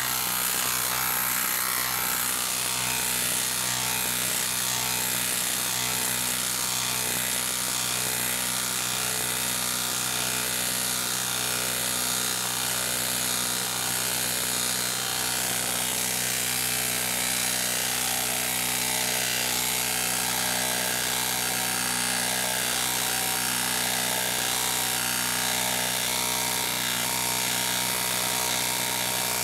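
Hilti half-inch cordless impact wrench hammering steadily on speed 3, driving a 5/8-inch lag bolt into a log round without a break. The bolt is sunk most of the way in by the end, heavy work for this low-range wrench.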